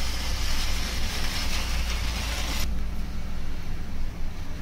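Hissing of water coming to the boil in a frying pan as dry vermicelli goes in; the hiss cuts off abruptly about two and a half seconds in. A low steady rumble runs underneath throughout.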